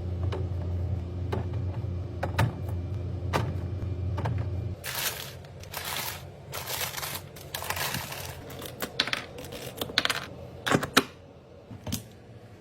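A kitchen appliance hums steadily for about five seconds, with a few sharp clicks, and stops. Then come several loud hissing bursts, followed by sharp clicks and taps of items being handled.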